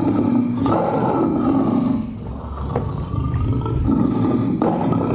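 Recorded tiger roars played as a stage sound effect: long roars that ease off about two seconds in, then swell again.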